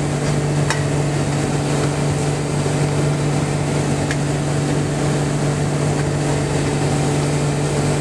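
Motorboat engine running steadily at speed, a constant low drone, over the rush of water and wind as the boat tows a skier.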